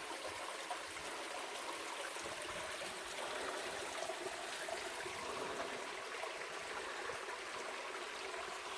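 Spring-fed creek water trickling and dripping off a rock shelf as a small waterfall, a steady light splashing.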